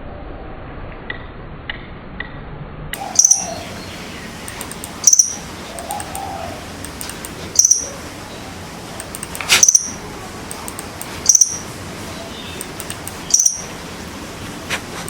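A short, loud, high-pitched chirping squeak repeating about every two seconds, six times, starting about three seconds in. It is a dog-prank sound effect played to a beagle.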